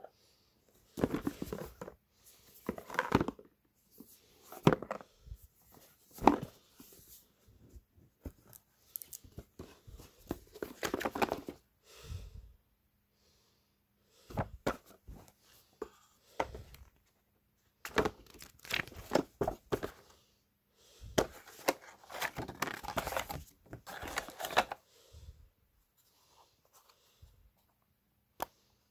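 Cardboard hearing-aid box and its paper inserts being handled: the lid and trays lifted and cards slid out, in irregular stretches of paper and cardboard noise separated by short quiet gaps, falling quiet for the last few seconds.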